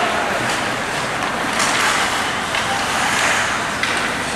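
Ice hockey arena ambience during play: a steady wash of noise from skates on the ice and the crowd, with a few sharp knocks.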